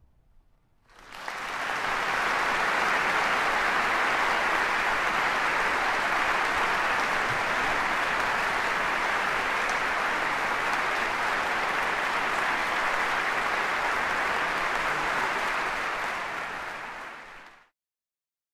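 Large audience applauding, starting about a second in and fading out near the end.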